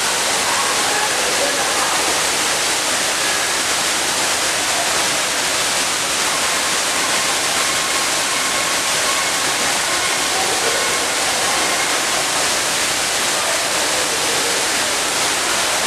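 Steady rushing noise of falling water, even and unbroken, with a few faint thin tones drifting over it.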